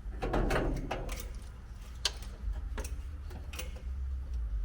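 Light clicks and taps from handling parts in a 1965 Chevy C-30's engine bay during an oil-level check, with a rustle about half a second in and single sharp clicks about every second after, over a steady low hum.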